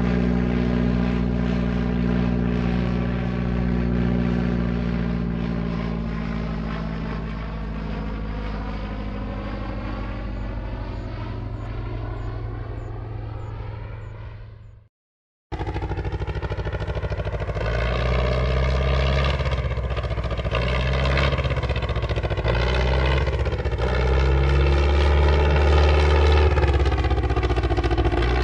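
Single-engine propeller airplane engine sound effects. The first is a steady engine drone whose pitch slowly falls as it fades out about halfway through. After a brief silence a second recording of a single-engine airplane engine starts running, deeper and with a slightly wavering pitch.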